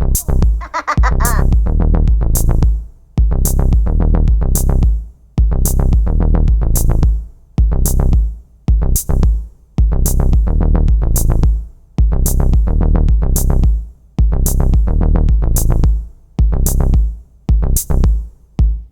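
Electronic music: a drum machine beat with sharp hi-hat hits and heavy synthesizer bass, looping steadily.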